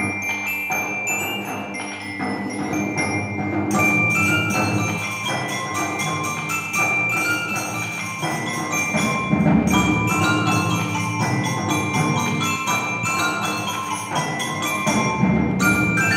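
Percussion ensemble playing: mallet keyboard instruments ring out a steady flow of pitched notes, with swells of low drums about nine seconds in and again near the end.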